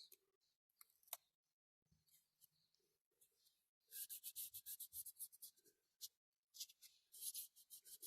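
Masking tape being rubbed down onto a die-cast toy car body: quick, soft, scratchy rubbing strokes, about five or six a second, starting about halfway through, with a brief pause between two runs.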